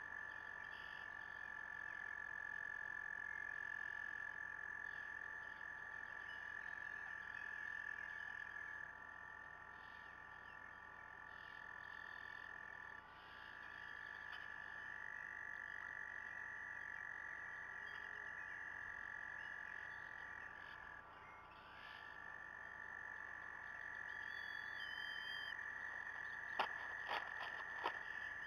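A chorus of frogs trilling: a long, steady, high-pitched trill from several overlapping callers that dips briefly twice. A few sharp clicks or knocks come near the end.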